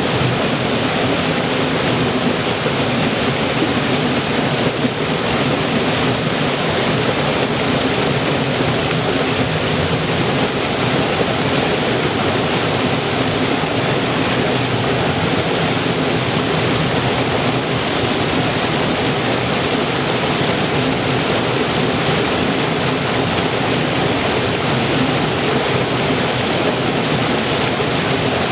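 River water flowing and rushing steadily, an even full sound with no breaks.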